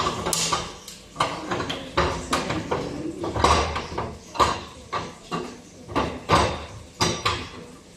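Kitchen clatter while cooking: a string of irregular knocks and scrapes of cookware and utensils, about one or two a second.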